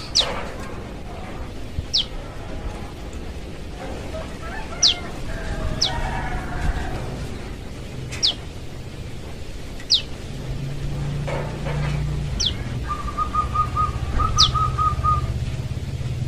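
Young prenjak lumut calling for its parent: short, sharp whistles that drop in pitch, repeated every second or two. About two-thirds of the way through, a quick run of ticking chirps comes in.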